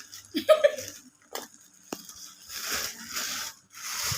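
Plastic packaging being handled and torn open, with a few sharp clicks early on and then repeated crinkling, rustling strokes about twice a second in the second half. A brief pitched squeak or voice sound about half a second in is the loudest moment.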